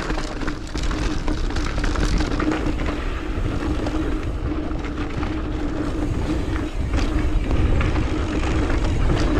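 Mountain bike riding down a dirt trail: wind buffeting the microphone, tyres rolling over dirt and the bike rattling with many small clicks, over a steady hum.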